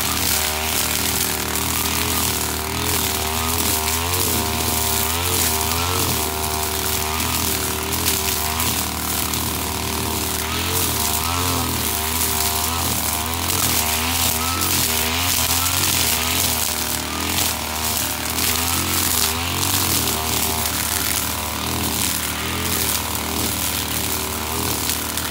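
Husqvarna 542RBS backpack brushcutter's two-stroke engine running at high revs, its note wavering up and down as the 3.5 mm nylon line cuts through thick grass, with a constant hiss from the cutting.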